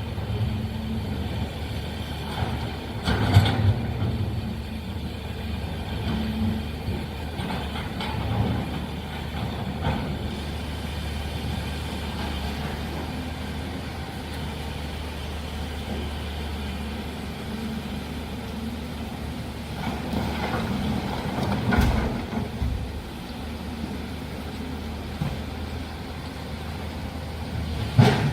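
Heavy diesel earthmoving machinery running steadily, with a low engine drone and occasional short knocks or clanks, the loudest about three seconds in and near the end.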